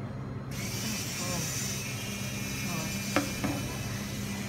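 Electric automatic swing-door operator opening a shop door: a steady low motor hum sets in and a sharp click comes about three seconds in, with a weaker click just after. Street noise comes in as the door opens.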